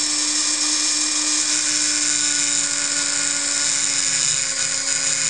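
Handheld high-speed rotary tool with a cylindrical abrasive bit running steadily as it grinds down a built-up weld on a diesel camshaft lobe. The whine sags slightly in pitch under load.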